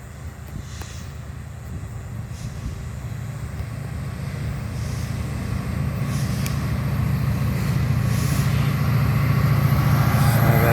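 Diesel freight locomotive, a CN SD75I with its EMD 16-710 two-stroke V16, approaching: a steady low engine rumble growing steadily louder as it nears.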